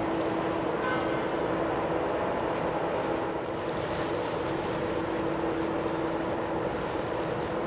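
The ferry Mega Andrea's engines and machinery droning as a steady hum with a held tone, over a steady hiss. A short high chirp comes about a second in.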